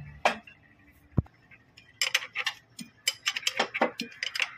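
Engine mountings with steel brackets being handled and knocked together on a worktable. A click, then a dull knock about a second in, then a run of quick, irregular light clicks and taps in the second half.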